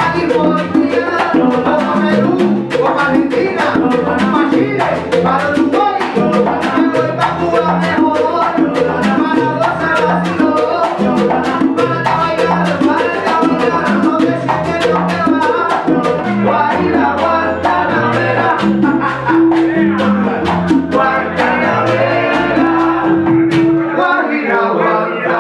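Salsa music with singing, hand percussion and a stepping bass line, playing continuously.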